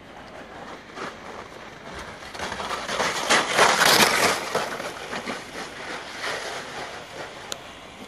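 A natural-track luge sled sliding down the ice, its steel runners scraping and rattling, growing louder to a peak about three to four seconds in and then fading.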